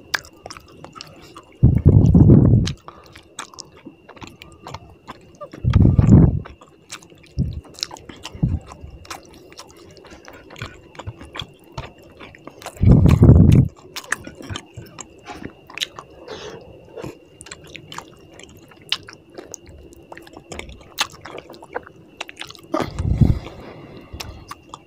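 Close-miked chewing of fish curry and rice eaten by hand, with many wet smacking clicks from the mouth. Four loud, short low thuds break in.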